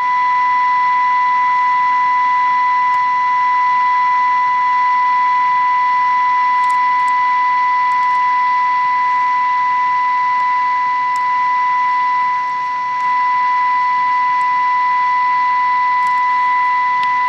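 A steady high test tone with hiss, coming from a 1963 Rambler AM car radio as it demodulates an AM-modulated 262 kHz signal from a signal generator during IF alignment. The tone's strength shifts slightly as the IF transformer cores are adjusted to peak it.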